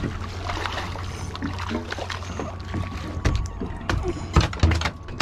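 Steady wash of water against the boat, then from about three seconds in a quick run of sharp knocks and heavy thumps as a gray triggerfish is swung aboard and flaps on the boat's deck.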